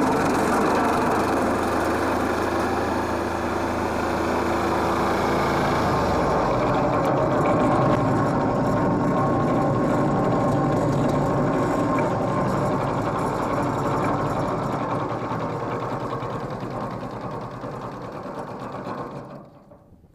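Branch wood chipper running steadily. Its deep low hum drops out about six seconds in, and the sound tapers off and cuts out near the end.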